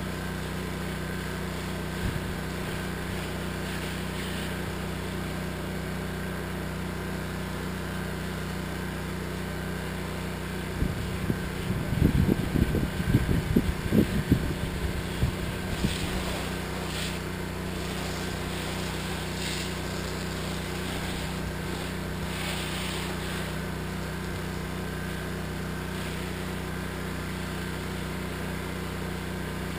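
Pressure washer's engine running steadily with a constant hum while the spray wand applies cleaning solution to a roof. Louder, uneven rumbling breaks in for a few seconds about eleven seconds in.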